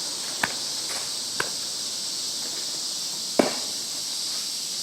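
Softball bat hitting pitched balls in batting practice: three sharp knocks, the loudest about three and a half seconds in, over a steady high insect chorus.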